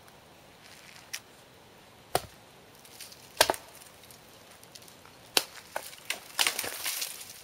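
Hatchet chopping into a leaning tree trunk: four single, spaced blows, then a quicker, denser run of strikes near the end.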